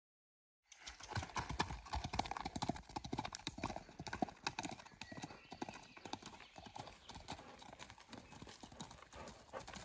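A rotating broom mounted on a ride-on mower sweeping a gravel road: a dense, irregular clatter of stones and grit flicked by the bristles. It starts suddenly just under a second in.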